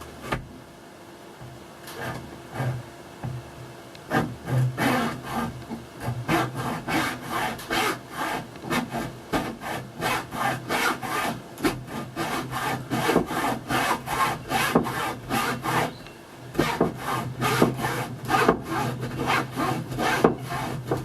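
Hacksaw cutting by hand through a teardrop camper's fiberglass-and-wood door frame, in quick back-and-forth strokes. A few scattered strokes first, then steady sawing from about four seconds in, a brief pause near sixteen seconds, then sawing again.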